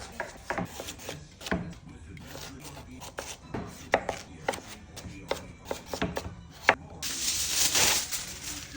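A series of irregular sharp knocks and taps, then about a second of loud hissing noise near the end.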